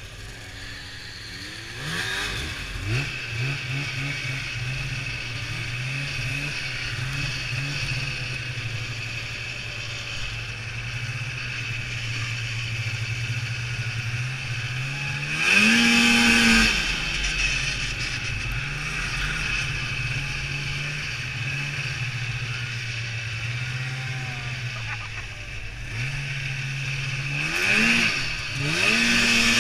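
Two-stroke snowmobile engine pulling away about two seconds in, then running at a steady pace. It revs up hard twice, once around the middle and again near the end as the sled climbs a hill.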